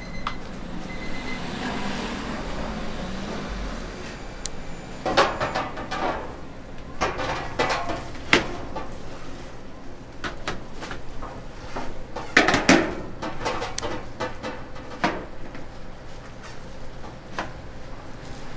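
Clattering and knocking of dishes, utensils and containers being handled in a dumpling shop kitchen, over a steady low hum. The clatter comes in scattered knocks, with two louder bursts about five and twelve and a half seconds in.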